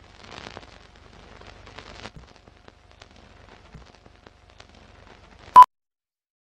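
Film countdown leader: faint film crackle and scattered clicks over a low hum, then a single short, loud 1 kHz sync beep (the 'two-pop') about five and a half seconds in.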